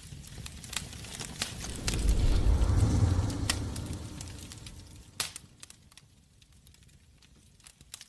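Logo sound effect: a deep fiery rumble swells up over the first two or three seconds and dies away, with sparks crackling and snapping throughout and a sharp crack about five seconds in.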